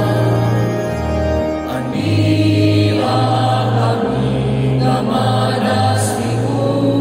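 Church choir singing a Cebuano hymn with instrumental accompaniment, sustained sung lines over steady bass notes that change about once a second.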